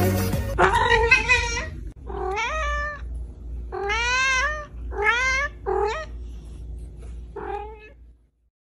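A cat meowing about six times with short gaps between calls, each meow rising then falling in pitch.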